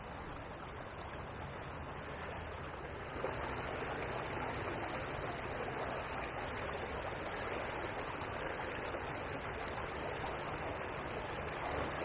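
Small river's fast water running steadily, a little louder from about three seconds in.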